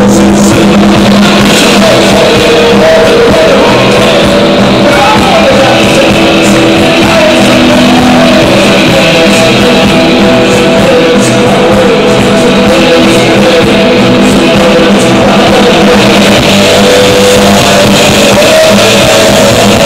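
Live rock band playing loudly in a club: two vocalists singing and shouting into microphones over drums and electric guitar.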